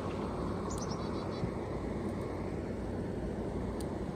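Black+Decker portable air conditioner/heat pump running, a steady fan-and-compressor drone with a low hum, not very loud.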